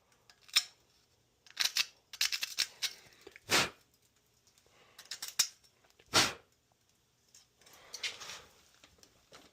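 A bristle brush scrubbing the corroded, crumbling burners of an older ICP gas furnace: short, irregular scratchy strokes with pauses, the sharpest about three and a half and six seconds in.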